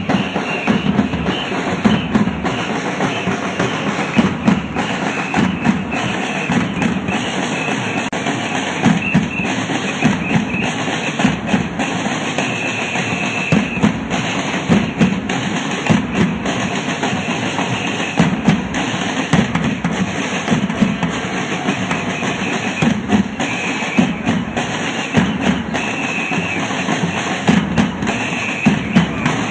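Drums beating, with bass drums the loudest part and strong low hits about every second.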